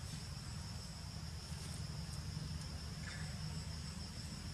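Steady outdoor insect chorus, a continuous high buzz at two pitches, over a low steady rumble, with a few faint ticks and a brief chirp about three seconds in.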